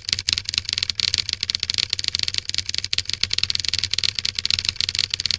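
Typing sound effect: a rapid, unbroken stream of key clicks laid under on-screen text that types itself out letter by letter.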